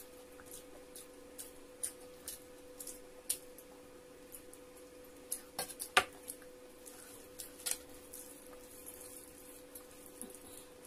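Light clicks and clinks of a steel bowl and plates, with the sharpest clink about six seconds in, as food is served and mixed by hand on a plate. A faint steady hum runs underneath.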